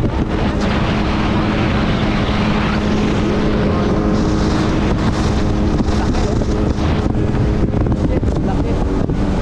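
Jet ski engine running steadily under way, with wind buffeting the microphone and water rushing past the hull.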